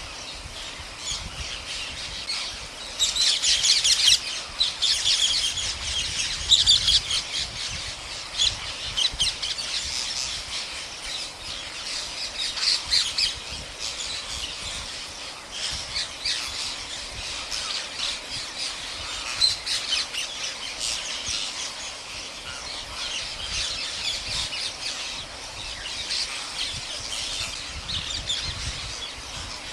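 A large flock of rose-ringed parakeets screeching together: a dense, continuous chatter of many overlapping shrill calls, loudest a few seconds in.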